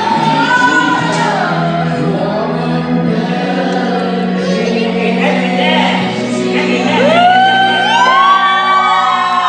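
Background music: a song with a singing voice over sustained accompaniment, the voice swooping up into long held notes near the end.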